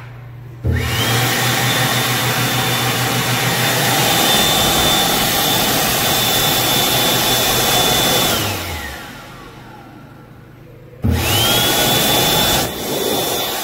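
ASI hand dryer switching on when a hand is held under it. A rush of air and a high motor whine rise quickly to a steady pitch, run for about seven and a half seconds, then wind down in pitch as it shuts off. About eleven seconds in it starts again abruptly and begins winding down near the end.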